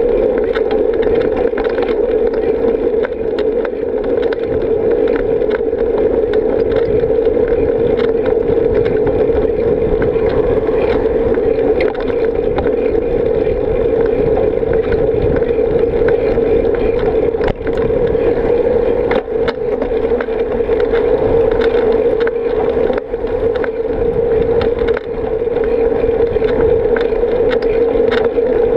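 Steady rumble of wind and road vibration picked up by an action camera riding on a moving bicycle, with a few sharp ticks from bumps in the asphalt path.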